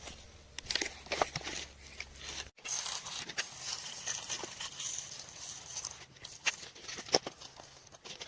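Soil and stones being dug and scraped by hand: crunching and scratching with scattered sharp clicks and taps of stone. The sound breaks off abruptly about two and a half seconds in and picks up again.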